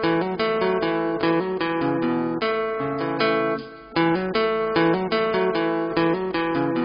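Instrumental background music: a plucked guitar picking out a melody note by note, with a brief break just before the four-second mark.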